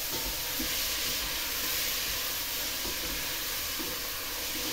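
Onion and other vegetables sizzling steadily in oil in a stainless steel pot over high heat, hot enough to risk scorching the onion.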